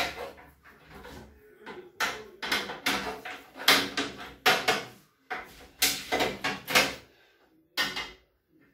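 Oven door being handled and cleaned: a sharp knock at the start, then clusters of short knocks and scrubbing strokes on the open door, a few a second.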